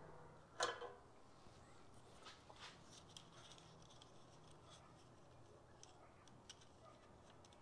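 Near silence with faint scattered clicks and small handling noises from hands working wires and a soldering iron. One louder, brief handling noise comes just over half a second in.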